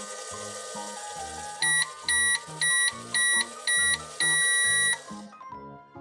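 Just Like Home toy microwave beeping to signal the end of its cooking cycle: five short electronic beeps, then one longer beep, over background music. A steady hiss underneath stops with the long beep.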